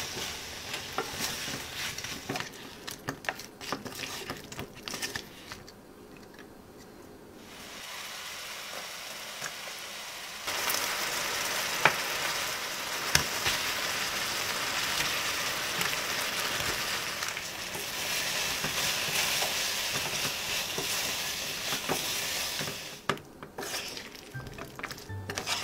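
Chicken deep-frying in hot oil. Scattered crackles and clicks give way about ten seconds in to a loud, steady sizzle that holds until near the end.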